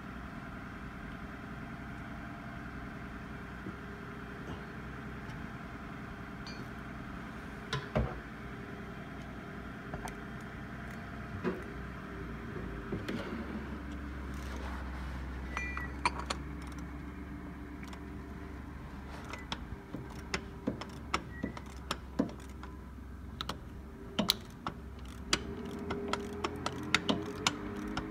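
Sharp metallic clicks and clinks over a steady mechanical hum. The clicks become more frequent in the second half.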